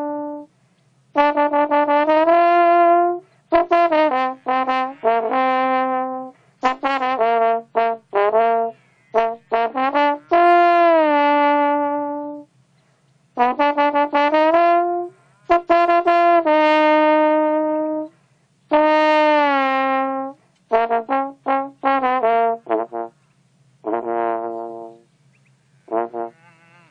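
A melody of separate brass-like notes of changing pitch, some long and some short, with brief gaps between them; several notes slide in pitch at their start or end.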